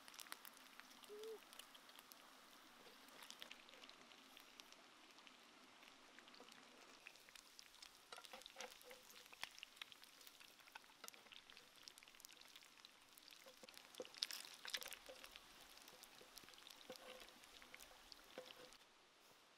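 Faint crackling and clicking of freshly fried chicken pieces in hot oil as they are tipped and scraped from the pan into a clay pot, with a denser run of crackles about fourteen seconds in.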